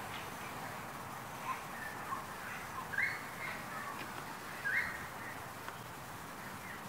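Birds in a large flock calling: many short scattered calls, with two louder harsh calls about three seconds and nearly five seconds in, over a steady background hiss.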